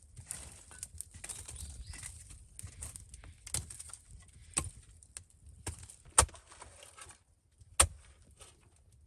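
Hand digging in earth and stone: scraping and crumbling soil with irregular knocks of a tool or rock, several sharp knocks standing out, the loudest two in the second half.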